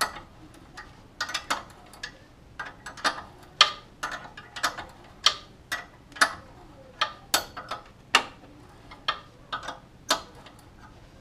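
A hand wrench working the exhaust studs out of the Subaru WRX's turbo outlet, giving sharp metal clicks at irregular intervals, about one or two a second, some in quick little runs.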